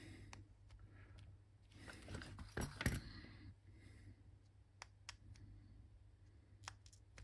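Faint, scattered clicks and light metallic clinks of small tools being handled at an electronics workbench during soldering work, over a low steady hum.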